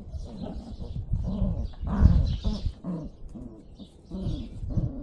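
Caucasian Shepherd puppies whimpering in many short, squeaky calls that overlap one another, loudest about two seconds in.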